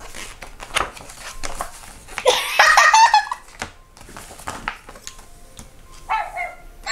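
A young child laughing: a giggling burst about two to three seconds in, amid soft taps and paper sounds from handling a picture book's pages.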